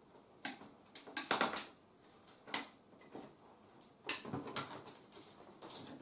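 Fingers scratching and picking at packing tape on a cardboard box: short, irregular scrapes and rustles, with a few louder clusters.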